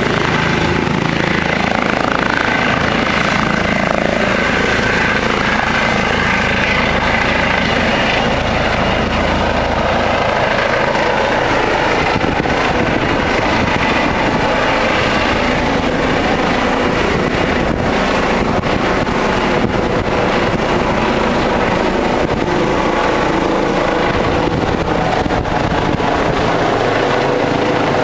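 Trauma helicopter running, its turbine and rotor noise loud and steady.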